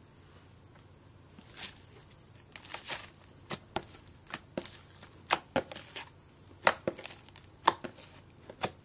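Thick slime being poked, pressed and stretched by fingers, giving irregular sticky clicks and pops that start about a second and a half in.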